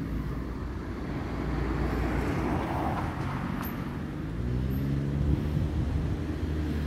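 Road traffic going past: a car's tyre noise swells and fades about a third of the way in, then a vehicle's engine hum rises low and steady through the second half.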